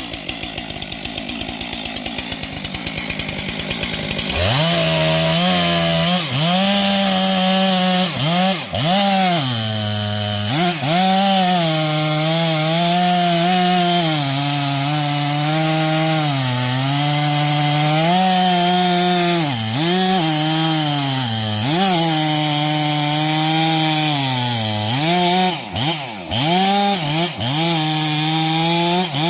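Chainsaw idling, then revved up about four seconds in and held at full throttle cutting into a tree, the engine pitch sagging and recovering again and again as the chain bites into the wood.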